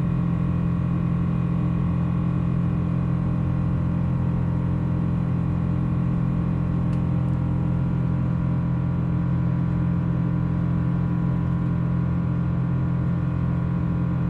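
Steady drone of a Boeing 777-200's twin turbofan engines heard inside the passenger cabin during the climb: a constant low hum made of several fixed tones over airflow noise. A faint click sounds about seven seconds in.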